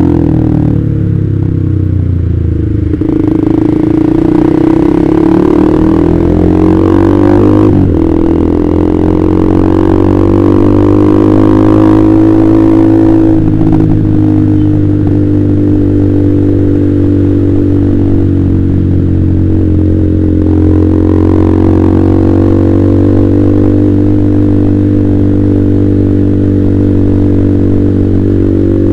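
Honda CBR150R's single-cylinder engine through an aftermarket KJ Pro Performance exhaust, ridden under way. The revs rise and fall through a few gear changes in the first half, then hold a steady cruising note.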